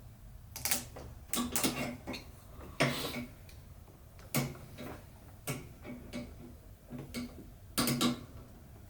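Irregular sharp metallic clicks and knocks, some in quick clusters, from hand tools and parts being worked on a riding mower during a tune-up.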